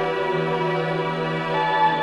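Background music: slow, calm ambient music of held tones, its chord shifting about one and a half seconds in.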